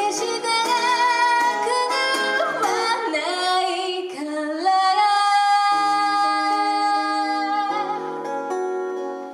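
A live song, a singer with guitar accompaniment: the voice moves through a wavering melody, then holds one long note from about five seconds in until nearly eight seconds, over sustained guitar chords.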